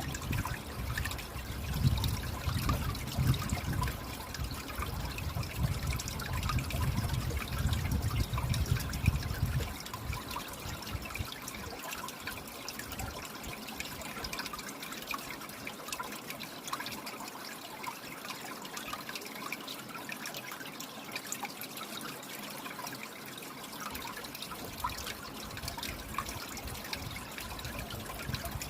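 Water trickling steadily, with many small drips and splashes, and a low rumble underneath for about the first ten seconds.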